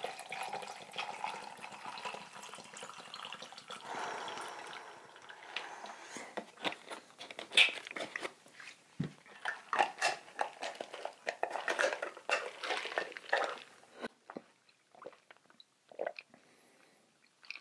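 Close-miked drinking: liquid pouring for the first few seconds, then a long run of gulps and swallows that thin out near the end.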